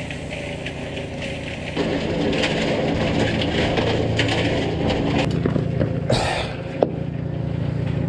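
Cement mixer running with a steady motor hum, the gritty churn and rattle of concrete tumbling in its drum growing louder from about two seconds in. A single sharp knock near the end.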